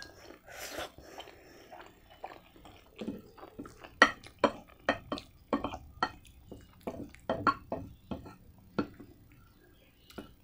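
Close-up eating sounds: a short slurp of spaghetti, then a run of sharp wet chewing clicks, about two or three a second, with a wooden fork working the pasta on a ceramic plate.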